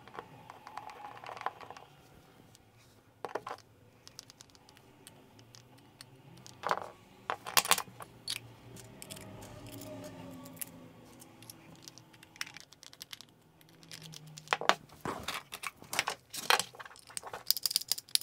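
Small sharp clicks, taps and knocks of a screwdriver and a metal guitar-pedal enclosure being handled while the pedal is screwed back together. The clicks come in clusters, a few around the middle and a denser run near the end.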